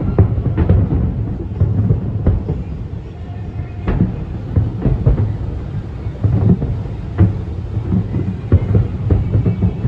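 Fireworks going off in rapid succession: a constant low booming rumble broken by frequent sharp bangs.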